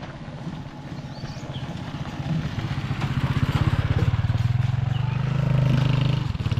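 Small motorcycle engine running and drawing closer, growing louder over the first few seconds, with a brief dip near the end.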